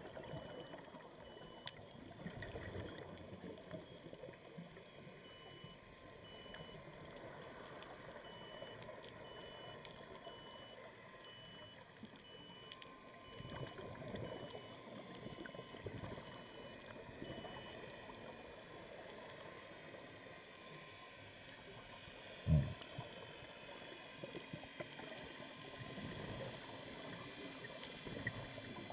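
Faint underwater sound of a scuba diver's exhaled regulator bubbles, gurgling in irregular surges. A faint high-pitched tone pulses regularly through the first two-thirds, and a single sharp knock comes about three-quarters of the way through.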